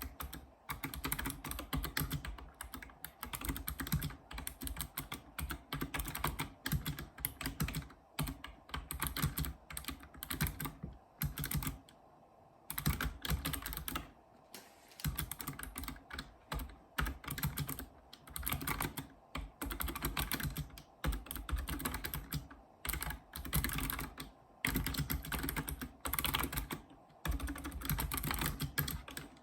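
Typing on a Razer Ornata Chroma keyboard, its mecha-membrane keys clicking in fast runs of keystrokes with brief pauses between them.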